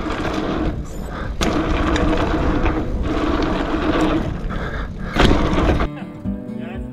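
Gravel bike's tyres rolling fast over packed dirt jumps, with heavy wind noise on the microphone and two sharp thuds of the bike landing, about a second and a half in and again near five seconds. About six seconds in, this gives way to background music with steady held notes.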